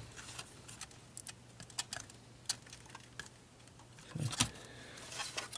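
Scattered small plastic clicks and taps from handling a clock radio's circuit board and working a ribbon cable into its connector, with a louder, duller bump about four seconds in.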